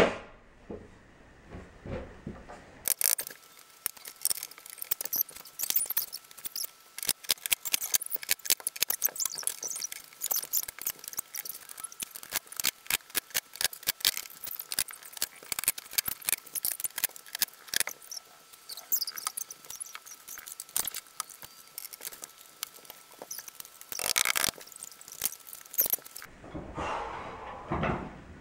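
Flat-pack wooden bed being assembled, the sound fast-forwarded: a few knocks of panels, then, from about three seconds in, a dense run of rapid clicks, clatter and squeaky chirps over a thin steady tone, cutting off abruptly near the end.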